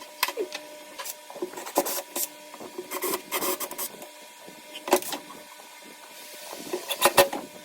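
Scattered sharp clicks and knocks with some rubbing, from hand work on a metal drawer slide against a plywood cabinet: a center punch marking screw holes and the slide being handled. The loudest knocks come about five and seven seconds in.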